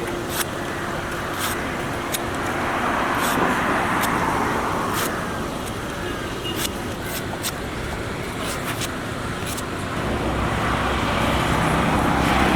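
Street traffic: vehicles passing, their noise swelling twice as they go by, with a low engine hum near the end, scattered sharp clicks and faint background voices.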